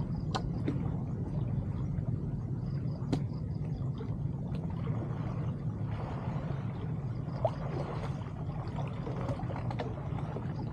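Canal water sloshing and gurgling as a wader pulls weeds and debris from a clogged culvert mouth, with scattered small splashes and clicks over a steady low rumble.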